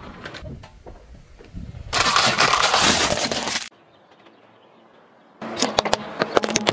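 Car tyre on rough asphalt, an even rushing noise for under two seconds that cuts off sharply. After a short quieter stretch, a tyre rolls over chalky toy ice-cream cones with a rapid run of sharp crunching cracks.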